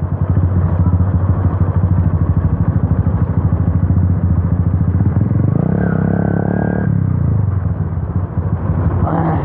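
Yamaha FZ V2's single-cylinder four-stroke engine running steadily under way, with a loud, raw exhaust note from an Akrapovic slip-on with its dB killer removed. A brief pitched sound joins it about six seconds in.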